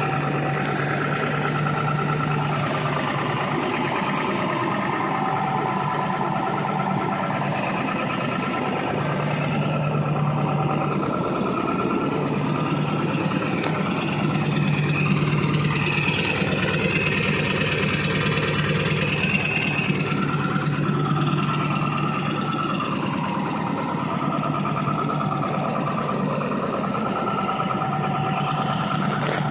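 2002 Ford F-250's 7.3 L Power Stroke turbo-diesel V8 idling steadily at high idle, still cold shortly after a cold start, heard through a 4-inch MBRP exhaust with muffler.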